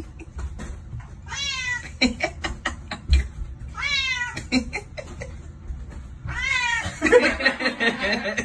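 Domestic cat meowing three times, each a drawn-out meow falling in pitch, about two and a half seconds apart. Near the end there is a louder, rougher stretch of sound.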